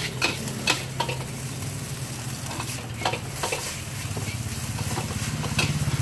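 Fried rice sizzling in a wok as a metal spatula scrapes and clinks against the pan, a sharp click every second or so, over a steady low hum.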